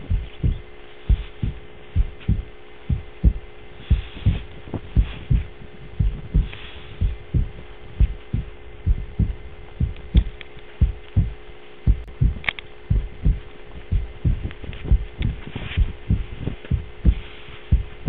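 Heartbeat sound effect, a steady low thudding about two beats a second, over a steady low hum drone.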